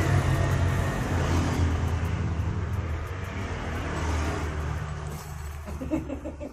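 A low, steady engine rumble that eases a little and then cuts off suddenly at the end.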